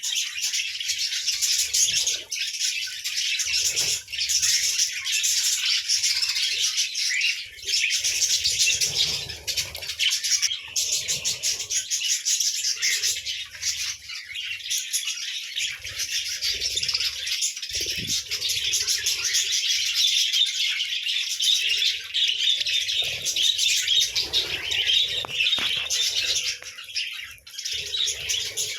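A group of budgerigars chattering and chirping without a break, many calls overlapping. There are occasional low rustles every few seconds.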